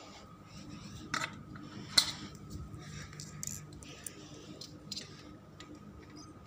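Screwdriver clicking and scraping against the metal frame of a sliding glass door: a sharp click about a second in, a louder one about two seconds in, then several lighter ticks.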